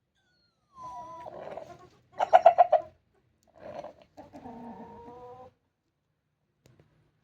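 Rooster making a strange, strained call: a drawn-out moan, then a loud rapid run of clucks about two seconds in, then a short burst and another drawn-out moan. The owner suspects he is straining from constipation.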